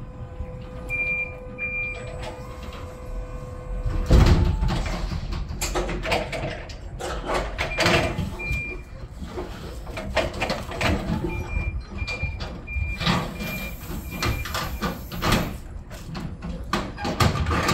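Forklift unloading pallets: its reversing alarm beeps in short runs, among repeated clanks and knocks of forks and pallets, the loudest a heavy thump about four seconds in.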